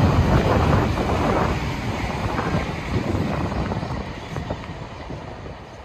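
Meitetsu electric train running along an elevated concrete viaduct, its rumble fading as it moves away, with some wind buffeting the microphone.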